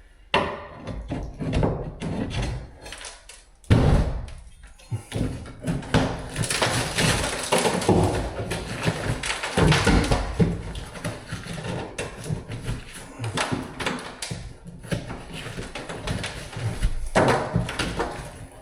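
Sheetrock being broken and pried out of a wall with a steel breaker bar: irregular knocks and cracks with crunching and scraping of drywall, the heaviest knock about four seconds in.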